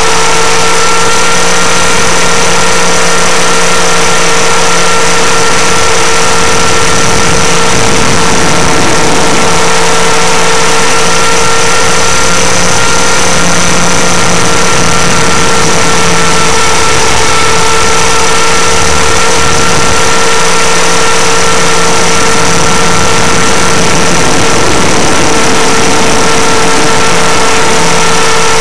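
Motor of a radio-controlled model aircraft running steadily in flight, heard through its onboard camera's microphone: a loud, unchanging whine over a constant rush of noise.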